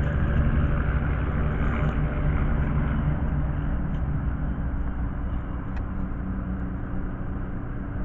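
A steady low engine rumble with a hum in it, slowly easing off in level.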